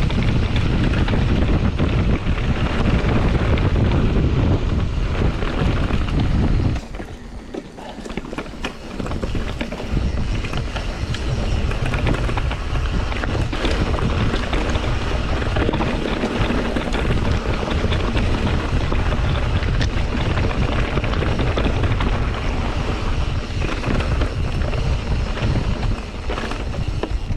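Wind buffeting the microphone of a mountain bike on the move, over the rumble, rattles and knocks of the bike riding a dirt singletrack. It eases off for a few seconds about seven seconds in, then comes back.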